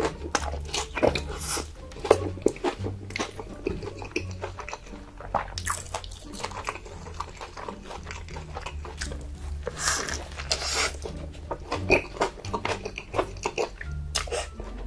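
A person biting and chewing crunchy food: a quick irregular run of sharp crunches over a steady low hum.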